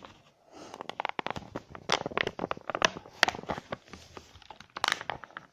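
Packaging crinkling and crackling as a sonic screwdriver toy is worked out of its box: a quiet moment, then from about a second in a dense, irregular run of clicks and rustles.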